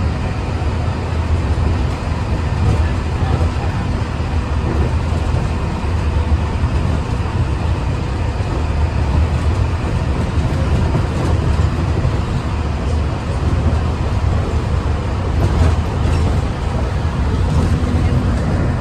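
Steady ride noise inside a Bombardier monorail car running along its beam: a constant low rumble with a faint steady whine above it.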